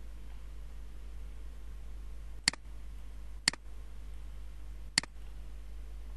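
Three sharp computer mouse clicks, about a second and then a second and a half apart, over a steady low hum.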